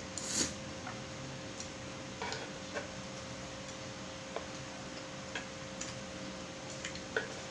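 Close-up eating sounds of stir-fried instant noodles (pancit canton): a handful of scattered soft clicks and smacks from chewing and chopsticks, the strongest just after the start, over a steady low hum.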